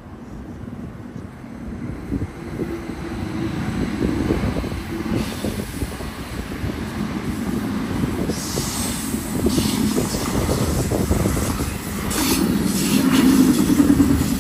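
Train passing on the railway line: a heavy rumble with a rapid clatter of wheels on the rails, growing louder over the first few seconds and loudest near the end.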